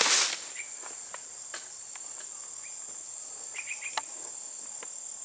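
Steady, high-pitched chirring of insects. A few faint quick bird chirps come just past the middle, and a single sharp click about four seconds in.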